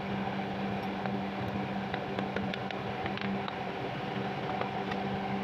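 Steady machine hum with a few constant tones, under faint scattered light ticks as a small metal worm gearbox is handled.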